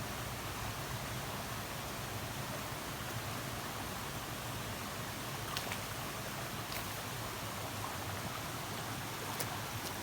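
Shallow creek water flowing over stones, a steady even rush, with a few faint clicks.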